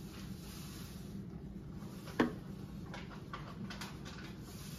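A plastic bottle and plastic cups handled on a hard countertop: one sharp knock about two seconds in as the bottle is set down, then a few faint light clicks, over a low steady hum.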